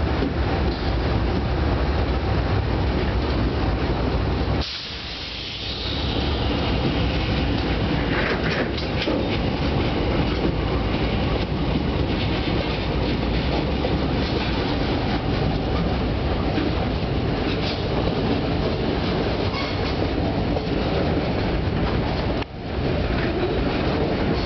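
Freight train passing close by: the trailing ex-BC Rail GE Dash 8 diesel locomotives run with a heavy low rumble, then boxcars roll past with a steady clickety-clack of wheels over the rail joints. The sound drops briefly about five seconds in.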